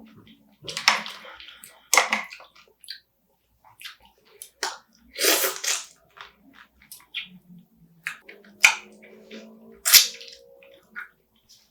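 Close-miked eating of spicy marinated raw crab: wet chewing broken by loud, sharp cracks as the crab shell is bitten, coming in separate bursts a second or more apart, about five in all.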